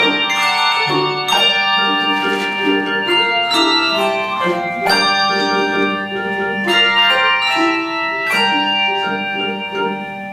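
Handbell choir ringing in chords: many bells struck and left to ring over a held low note, with quick runs of repeated notes in the middle voices.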